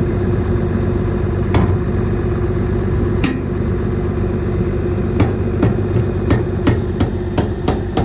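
Combine engine idling steadily, with a series of sharp knocks over it that come closer together in the second half.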